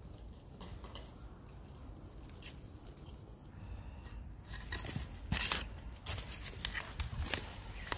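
Snow crunching underfoot and a garden fork being handled in the snow, with scattered soft crunches at first and a quick run of sharp crunches and clicks in the second half.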